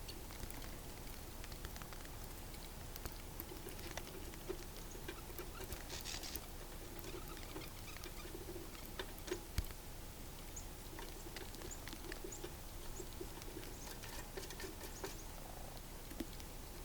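Scattered light clicks and taps of small animals feeding at a bird feeder, with a brief high-pitched call about six seconds in.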